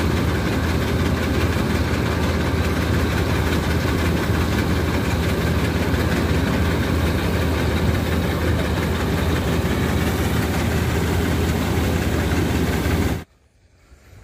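An engine running steadily at a constant speed. Near the end it cuts off abruptly.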